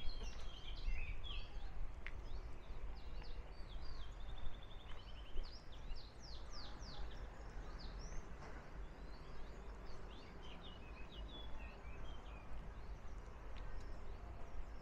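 Small birds chirping and twittering in many quick, short notes, thickest in the first half and again a little after the middle, over a steady low rumble.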